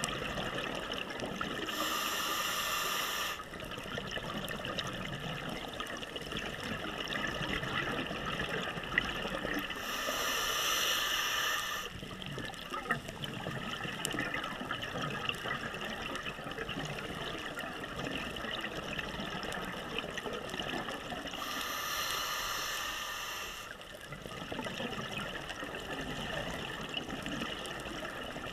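Scuba regulator breathing recorded underwater: three long bubbling rushes of exhaled air about ten seconds apart, over a steady underwater crackle.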